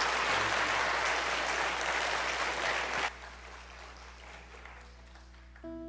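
Congregation applauding, the clapping stopping about three seconds in. Near the end a guitar chord starts.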